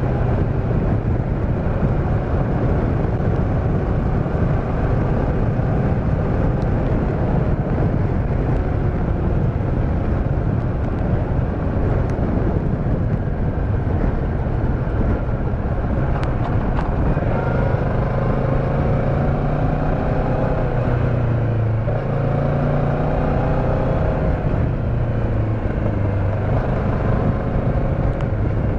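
A motorcycle being ridden: steady wind rush over the microphone with the engine running underneath. A little past halfway the engine note climbs, drops at a gear change, then climbs again.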